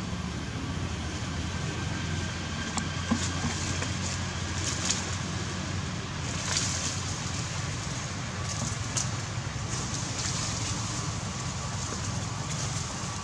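Steady outdoor background din with a low hum, broken by scattered light clicks and rustles from the branches as a young macaque climbs through them.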